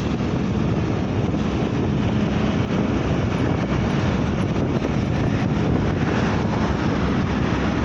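Steady noise of a moving vehicle, with the engine, road noise and wind on the microphone blended into one continuous rush.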